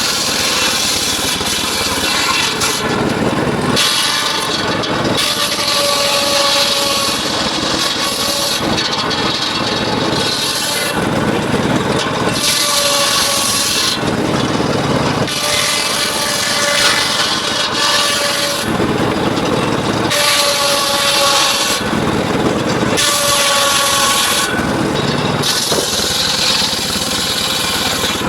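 Circular sawmill blade cutting mahogany, in repeated cuts that swell and ease every two or three seconds, with a ringing tone coming and going during the cuts.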